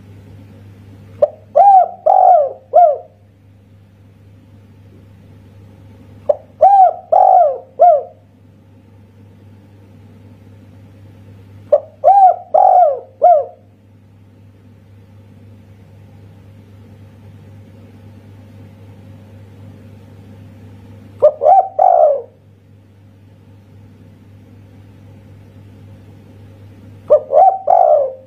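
Spotted dove (tekukur) cooing: five separate song phrases spaced several seconds apart. Each phrase is a short lead-in note followed by two or three louder coos.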